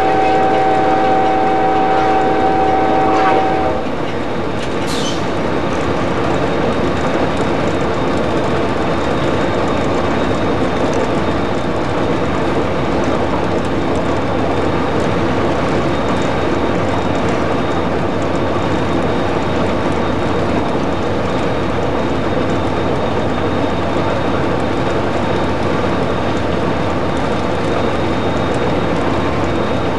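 Amtrak P40 locomotive's air horn sounding a steady chord that cuts off about four seconds in. It is followed by the steady noise of the locomotive cab running at track speed.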